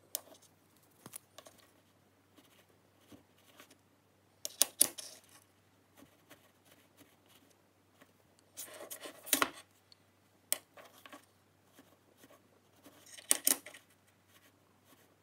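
Small handling sounds of a steel hex nut and a pen being moved on a metal plate: sparse light clicks and taps, with three short scratchy scrapes spread through, the loudest in the middle.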